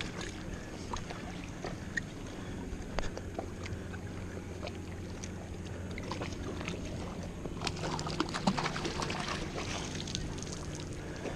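A motorboat engine droning steadily on the lake, with scattered clicks and rattles of fishing tackle being handled, busiest a little past the middle.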